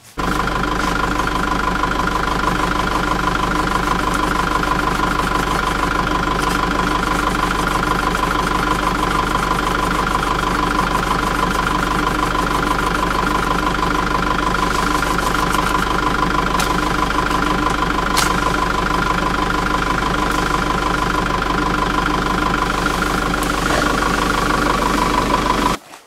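Car engine running steadily at an unchanging pitch, with no revving.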